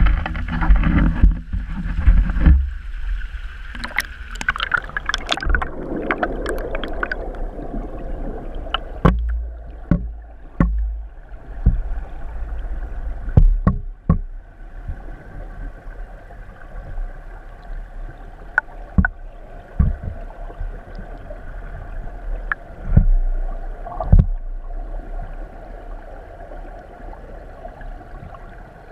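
Stream water heard from a camera held underwater: a steady low rumble and muffled rushing, with scattered knocks and clicks, thickest in the first several seconds.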